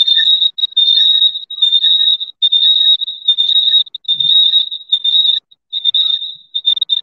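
A steady high-pitched electronic tone, like a whistle, cut into short stretches by brief irregular gaps, with faint hiss around it: interference on the live-call audio that the host calls a lot of voice disturbance.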